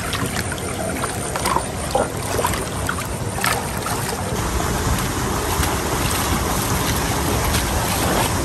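Shallow stream of water flowing steadily over stones, a continuous rushing, with a few splashes and knocks of stones being handled in the water during the first few seconds.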